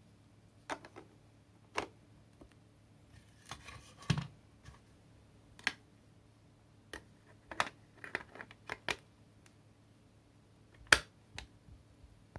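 Scattered clicks and knocks of plastic vacuum parts being handled, about a dozen, with a short scraping rustle about four seconds in and the loudest knock near the end; likely the dust box and head of a cordless stick vacuum being taken apart for cleaning.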